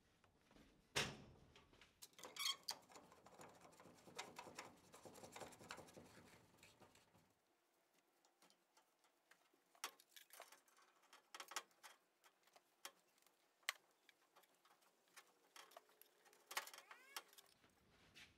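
Mostly quiet, with sparse sharp clicks and clinks of metal pipe fittings being handled and tightened on a compressed-air line drop. There is one strong click about a second in, a patter of rapid ticks and rattles for a few seconds after, and scattered single clicks later.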